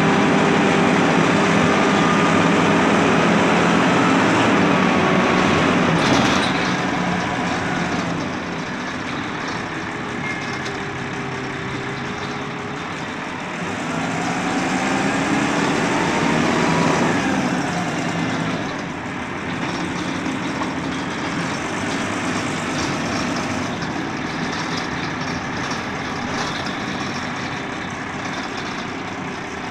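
Dennis Dart single-decker bus heard from inside the saloon while on the move: its engine and drivetrain run steadily. About six seconds in there is a clunk, after which it goes quieter. Between about fourteen and seventeen seconds a rising whine shows it picking up speed, then it settles into a quieter, steady run.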